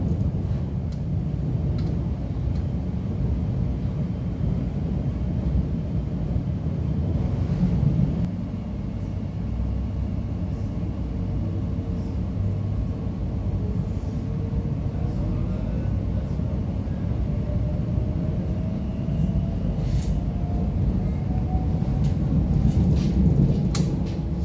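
Interior running noise of a Bombardier Class 345 electric multiple unit travelling along the track: a steady low rumble, with a faint whine climbing slowly in pitch over the second half and a few sharp clicks near the end.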